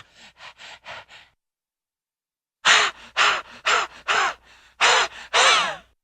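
Cartoon dog sound effects: a few quick, soft panting puffs, then after a short pause a run of loud, high yips, each trailed by a smaller one, the last ones sliding down in pitch.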